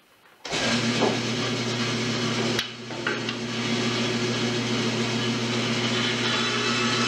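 Band saw switched on about half a second in, its motor running at once with a steady hum. The blade then trims the ends of a wooden canoe-seat frame, with a brief drop in level a little after two and a half seconds.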